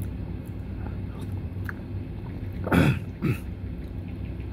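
A man gives two short throaty vocal sounds, falling in pitch, about three seconds in, a reaction to tasting spicy ramen soup, over a steady low room hum.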